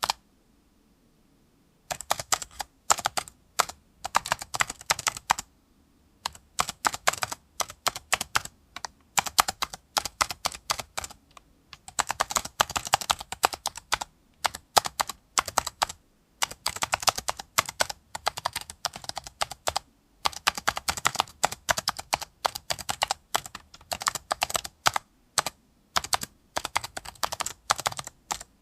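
Typing on a computer keyboard: rapid, sharp key clicks in runs of a few seconds, broken by short pauses. The first click comes about two seconds in.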